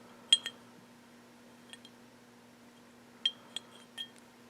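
Light clicks and clinks of a model locomotive's body shell and small parts tapping together as the body is fitted back onto the chassis: about six sharp taps at uneven spacing, some with a brief high ring.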